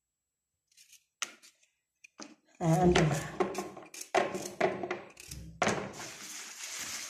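A few light clicks and taps as small turnips are trimmed and the pieces dropped into a plastic colander, then a person's voice from about two and a half seconds in, with more clatter.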